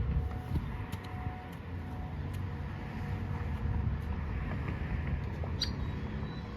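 Passing road traffic rumbling, with the faint steady tone of distant Federal Signal outdoor warning sirens fading in and out as they rotate during an alert test. A brief high squeak about five and a half seconds in.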